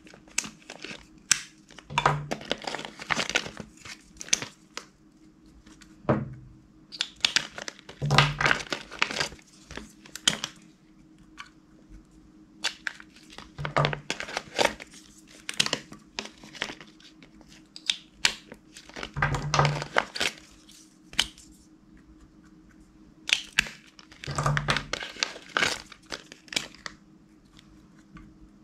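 Clear slime being squeezed and stretched by hand, giving bouts of crackling and popping every five or six seconds, each with a soft low thud.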